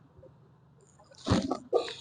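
A person breathing out hard, a breathy huff with a little voice in it about a second in and a shorter second one just after, as the patient lets out a deep breath on instruction.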